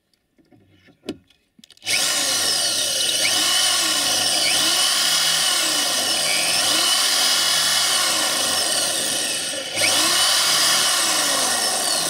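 Electric drill starting about two seconds in and running steadily as its bit bores into the steel stub of a wiper pivot shaft, pausing briefly near ten seconds before biting in again.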